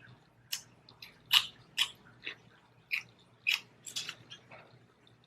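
Celery stalk being bitten and chewed close to the microphone: a string of crisp crunches, about two a second.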